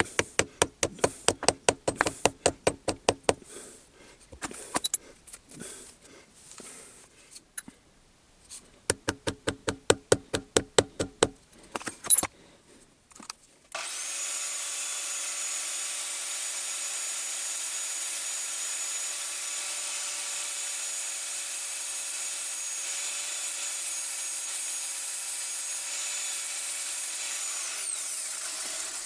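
Two bursts of rapid back-and-forth hand-tool strokes on metal, about six a second. After a short pause a power tool's motor starts abruptly and runs steadily with a high whine for about fifteen seconds, cutting off near the end.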